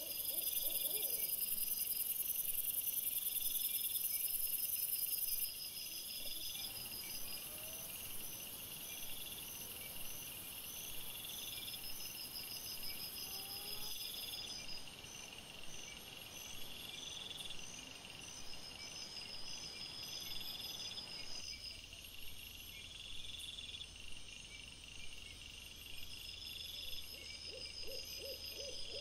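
Night insects chirping in a repeating pattern, over a steady high hiss that is loudest for the first five seconds or so.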